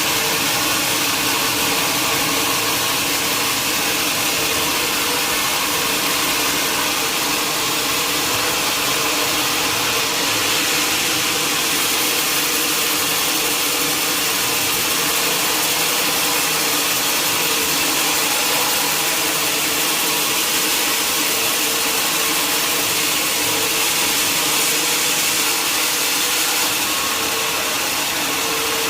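Sawmill saw cutting through a mahogany log, running at a steady pitch: an even, high hiss with a faint steady hum beneath and no breaks.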